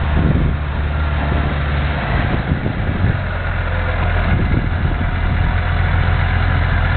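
Case IH tractor's diesel engine running steadily at close range, its low engine note changing about two seconds in.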